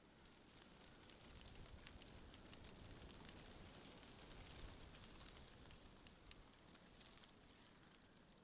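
Faint wind rustling through trees, swelling a little midway, with scattered light crackling ticks.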